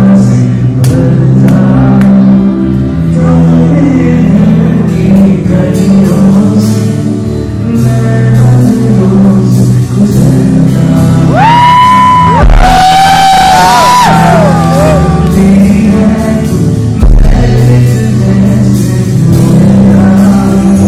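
Live band playing while a man sings into a handheld microphone. Around the middle come a few long high notes that bend and waver.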